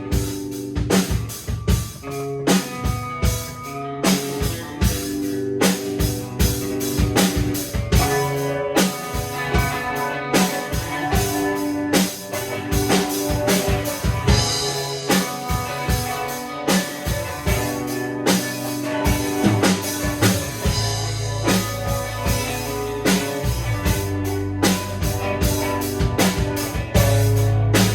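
Rock music: a drum kit keeping a steady beat under electric guitars.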